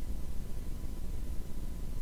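Steady low rumble with faint hiss: background room noise, with a thin faint steady high tone running under it.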